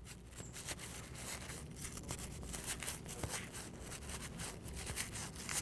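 Faint rustling and crinkling of a plastic CD pocket as a wooden popsicle stick pushes crumpled seaweed strips down inside it, with small scrapes and clicks throughout.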